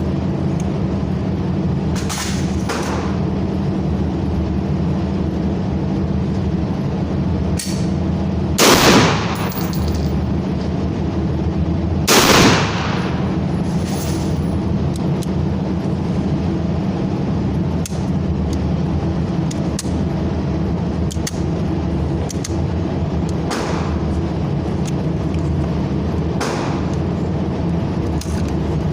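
Gunshots at a firing range: two loud shots about three and a half seconds apart, each with a ringing tail, among several fainter distant shots, over a steady low hum.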